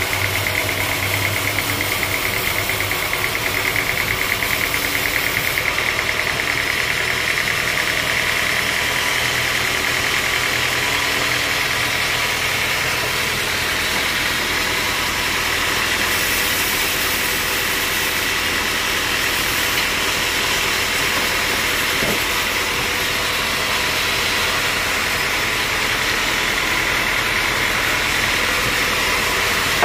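Band sawmill running steadily: a constant mechanical drone with a high whine that holds the same level throughout.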